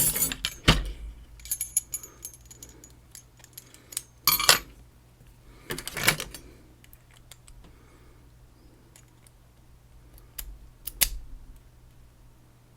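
Keys jingling on a ring and small metal clicks as a key is taken out and handled against a padlock. There are a few louder clusters of jingling near the start, about four and six seconds in, and near the end, with light ticks between them.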